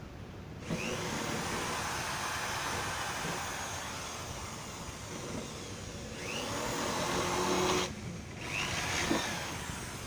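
Electric motor of a homemade table saw running with a loud rushing whine, cutting out about eight seconds in and starting up again.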